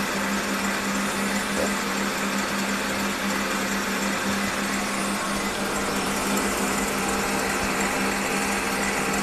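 Electric mixer motor running steadily with a constant hum, whipping the zefir (marshmallow) base.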